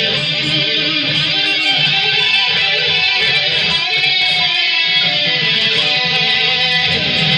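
Electric guitar, a Jackson Stealth with stock Jackson pickups, played through a DigiTech GSP2101 rack processor and amp into a Marshall cab with Celestion speakers. The notes and chords run on steadily without a break.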